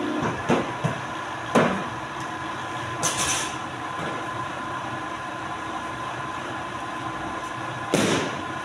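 Polar 115 guillotine paper cutter running with a steady hum while stacks of paper are pushed and knocked into place on its table: a sharp knock about a second and a half in, a short hiss about three seconds in, and a louder swish near the end.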